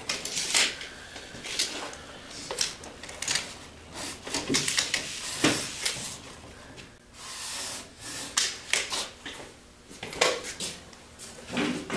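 Irregular clicks and knocks from a tape measure and hand tools being handled while a drywall sheet is measured.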